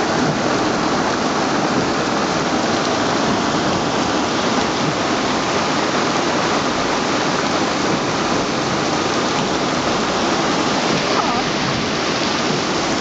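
Heavy rain from a thunderstorm pouring down steadily, with floodwater rushing over the paved street.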